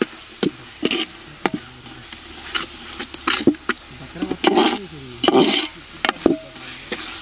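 A ladle stirring and mashing thick onion-tomato masala gravy in a pot, knocking and scraping against the pot in irregular clacks over a light sizzle. Twice near the middle, a short vocal sound rises over it.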